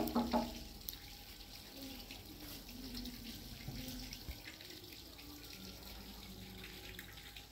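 Faint steady trickle of water with scattered small drips, after a child's voice cuts off about half a second in.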